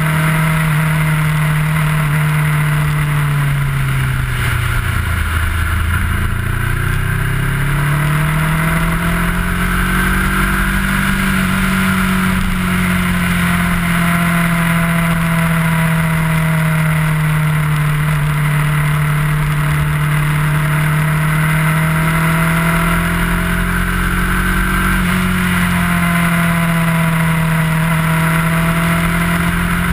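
Kawasaki ER-6f's parallel-twin engine under way, heard from the bike with a rush of wind and road noise; the revs drop sharply about five seconds in, climb back, then hold fairly steady with gentle rises and falls.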